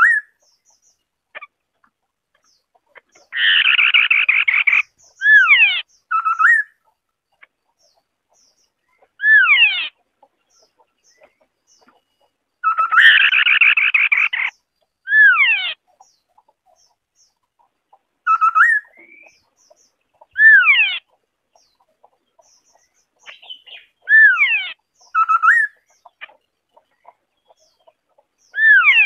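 White-browed scimitar-babbler calling: short phrases of loud, clear notes, each sweeping steeply downward in pitch. Twice, about three seconds in and again about thirteen seconds in, a harsh rapid rattle lasts a second or so, and the sequence repeats roughly every nine seconds.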